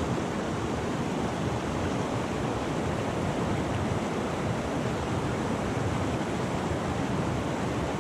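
Steady rush of a fast-flowing spate river.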